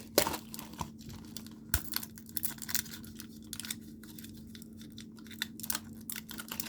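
Plastic building-set packaging and bricks being handled: irregular sharp clicks and taps with light crinkling, the loudest click just after the start.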